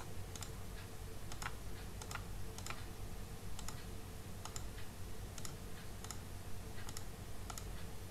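Computer mouse clicking: sharp single clicks at an uneven pace, one to two a second, over a faint steady low hum.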